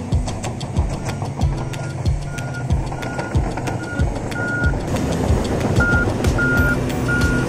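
Heavy diesel earthmoving equipment running, with a Cat 140M motor grader's blade cutting dirt. A machine's reversing alarm beeps repeatedly from about two seconds in, getting louder and longer near the end.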